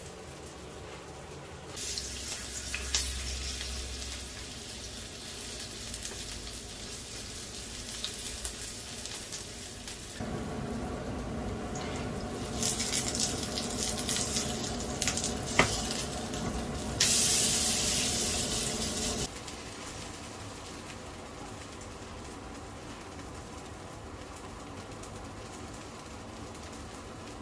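Mung bean pancakes (bindaetteok) sizzling in hot oil in a frying pan, with a spatula knock against the pan. The sizzle is loudest for a couple of seconds a little past the middle.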